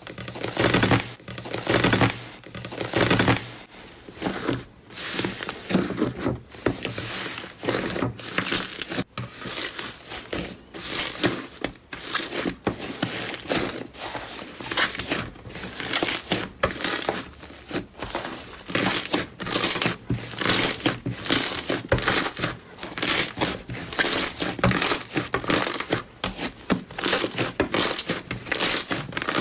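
Hands squeezing and pressing slime: a rapid, uneven run of short squishes, about one or two a second.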